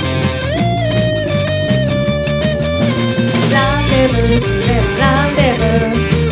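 Rock band music: an electric guitar and bass over a drum kit, with a lead melody that slides up about half a second in and wavers from about halfway through.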